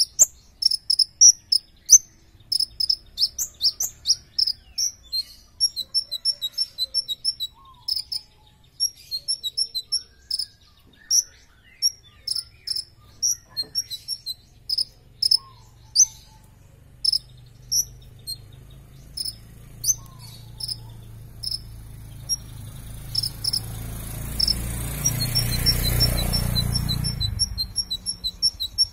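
Olive-backed sunbird (kolibri ninja) singing in its cage: rapid, high-pitched chirps and twitters, one burst after another. Near the end a passing vehicle's rumble swells up and fades away, loudest over the song.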